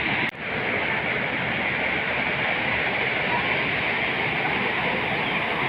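Steady rush of flowing floodwater, with a brief dip about a third of a second in.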